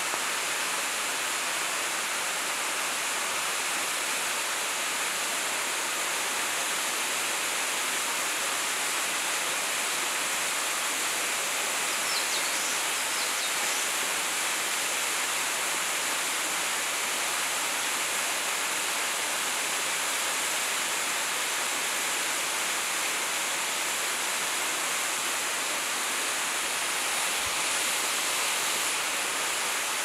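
Waterfall pouring down a rock face: a steady, even rush of falling water with no change in level.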